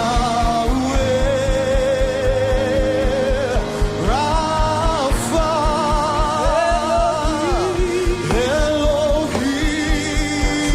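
Gospel worship music: a vocalist holds long, wavering notes and slides between them, without clear words, over a band with a steady drum beat.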